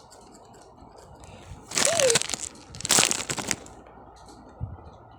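Plastic wrapping of a snack cookie package crinkling in two short bursts as it is handled, about two and three seconds in.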